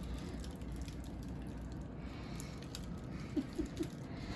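Quiet room tone with a steady low hum, broken by a few faint short clicks and small handling noises in the second half.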